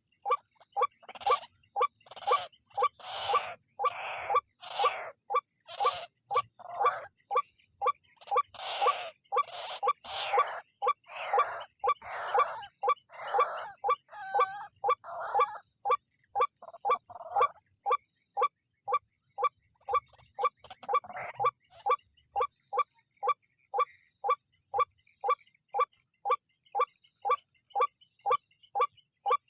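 White-breasted waterhen (ruak-ruak) calling over and over, about two calls a second. The first half has longer, harsher notes, which give way to short, clipped, evenly spaced calls. A steady high-pitched insect buzz runs behind them.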